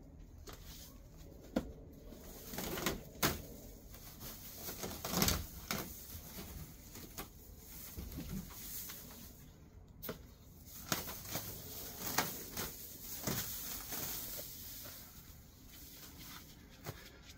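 Dry, overgrown grass and weeds being pulled up and gathered by hand: irregular rustling and crackling with scattered sharp snaps.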